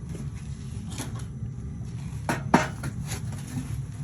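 Several sharp clinks and knocks of metal being handled, the loudest about two and a half seconds in, over a steady low hum.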